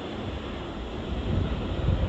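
Gusty wind buffeting the microphone, a rumbling rush that surges louder in the second half.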